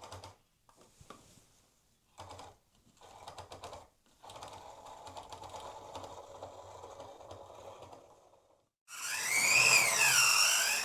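HO-scale Jouef TGV model train, its motor running in stop-start bursts as it is backed slowly along the track, then near the end breaking into a loud, wavering screech. The locomotive runs badly and the screeching is described as terrible.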